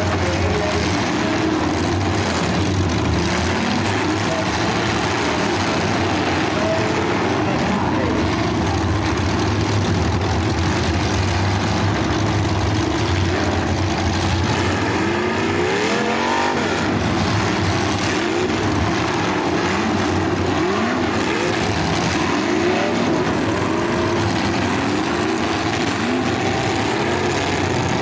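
Several full-size demolition derby cars' engines running together, revving up and down as the cars accelerate and back off; the strongest rising-and-falling rev comes about halfway through.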